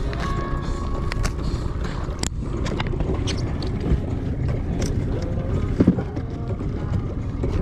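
Steady wind rumble on the microphone, with knocks and clatter of white PVC jug floats being handled and stowed in the boat's compartment, the loudest knock near the end.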